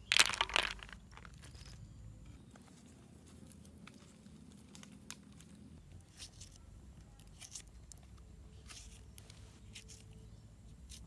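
Crunching, crackling handling noise, loudest in a burst during the first second, then sparse faint clicks and rustles over a low steady background.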